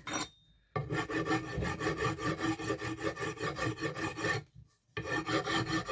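Fast, even rasping strokes, about ten a second, stopping twice briefly.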